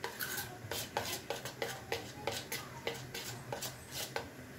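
Steel spoon stirring gram-flour (besan) batter in a stainless steel bowl, clinking against the side of the bowl about four to five times a second.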